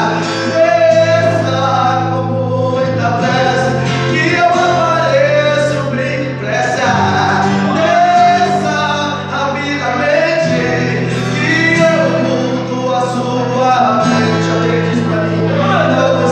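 Gospel music: singing over a steady instrumental backing with sustained bass chords.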